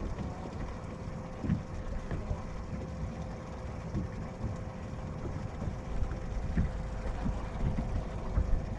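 Wind rumbling on the microphone of a camera on a bass boat's deck, with a faint steady hum and a few soft low thumps.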